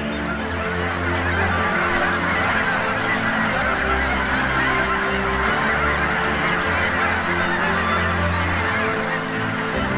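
Background music: sustained low chords that change every few seconds, under a dense, busy layer higher up.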